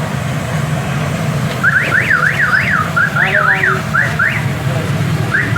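Electronic alarm sounding a run of quick rising sweeps, about three a second, that stops and starts again near the end, over a steady low hum.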